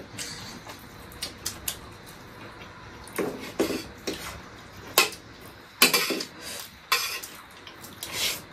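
A metal spoon clinking and scraping against a steel plate while eating: scattered sharp clinks, several of them in the second half.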